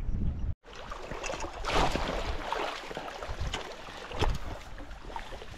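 River water splashing and sloshing in irregular bursts, loudest about two seconds in and again after four seconds, as a hooked fish is played at the surface.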